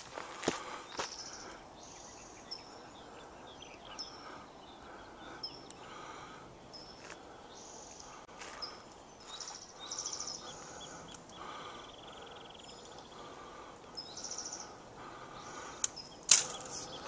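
Wild birds singing: many short, high, repeated phrases over a faint outdoor hiss. There are a few crunching footsteps on a dirt trail near the start, and a louder one near the end.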